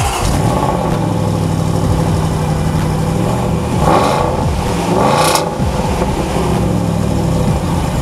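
Range Rover Sport's 5.0-litre supercharged V8 running at a cold-start idle through its exhaust, blipped twice, briefly, about four and five seconds in.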